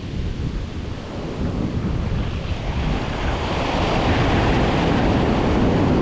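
Surf washing onto the beach, with wind buffeting the microphone in a low rumble. The wash swells louder about two to four seconds in.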